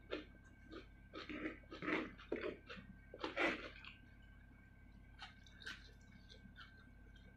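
Close-miked chewing of a mouthful of rice and chili-coated salted fish: irregular wet, crunchy chews, busiest in the first four seconds, then fewer and softer.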